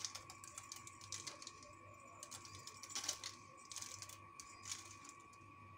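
Crushed caramelized almonds shaken from a small glass jar onto butter paper: a patter of small clicks in short shakes, about one a second.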